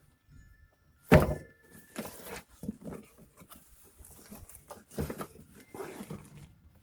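A cardboard tool box being handled and set down: one loud thump about a second in, then a run of irregular knocks and scrapes.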